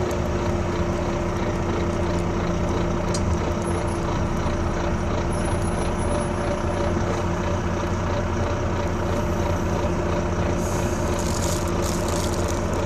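Volvo B9TL double-decker bus running at a steady pace, a steady whine held over the engine rumble. A short hiss comes near the end.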